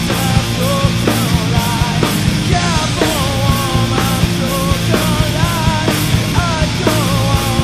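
Stoner/doom metal: a heavy distorted guitar riff with bass and drums, and a melodic line above that bends up and down in pitch.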